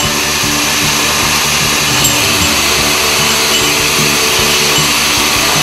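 Takeda CSHP-70A metal-cutting circular saw cutting through a bundle of thin-walled 30 mm steel pipes, giving an even, steady machining noise.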